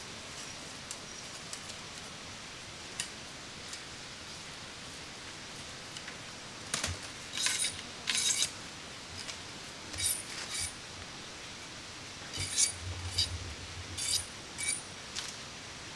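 An irregular series of sharp clinks and taps from small hard objects being handled, a few with a short high ringing, over a steady hiss. They begin about seven seconds in and come in clusters.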